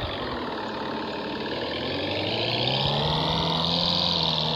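Off-road jeep engine running, its pitch dropping over the first second, then revving back up to a higher, louder peak near the end.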